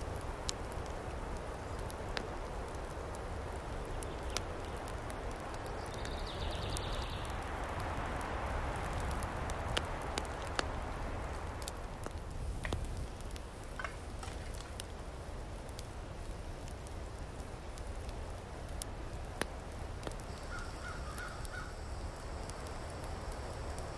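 Pine-forest ambience: a steady rush of wind through the trees, with scattered small clicks. A bird gives a short high call about six seconds in, and a crow caws a few times near the end.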